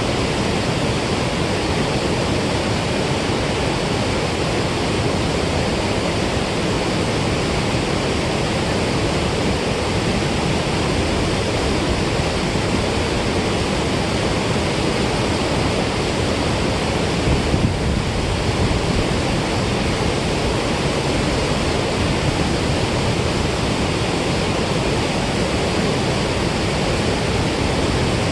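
Water rushing steadily out of a dam spillway: a loud, even rushing noise that does not let up.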